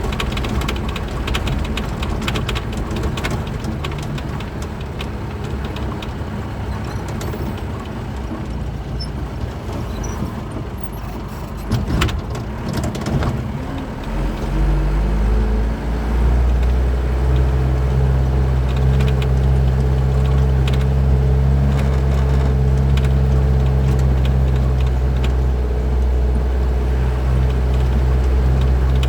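Truck engine running with rough road noise, a sharp knock about twelve seconds in, then from about fourteen seconds a louder, steady low drone at a fixed pitch.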